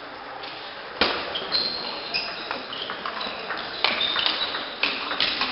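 Table tennis rally: sharp clicks of the ball off the bats and table, a handful of them about a second apart, with short high squeaks of shoes on the sports hall floor between hits.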